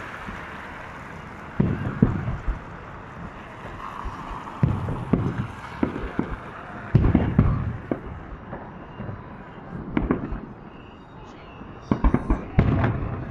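Aerial fireworks shells bursting overhead in a series of deep booms a few seconds apart, with a quicker cluster of bangs near the end.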